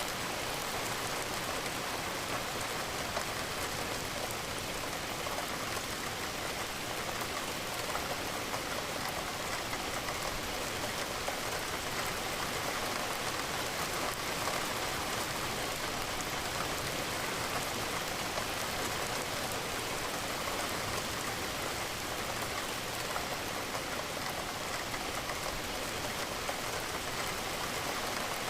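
Steady rain with a dense scatter of small drop ticks, the drops falling against a window.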